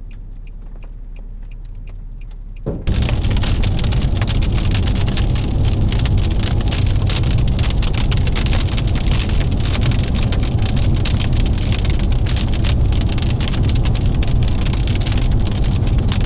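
Heavy rain pelting a vehicle's roof and windshield, heard from inside the cab: a dense, loud patter of drops over a low rumble. It starts abruptly about three seconds in, after a quieter stretch of faint scattered ticks.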